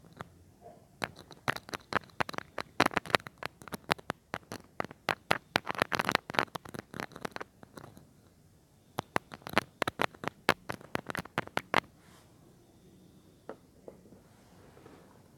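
Close-miked ASMR trigger sounds on a mini microphone: two runs of rapid, crisp clicks and crackles with a short pause between them, then only faint scattered sounds.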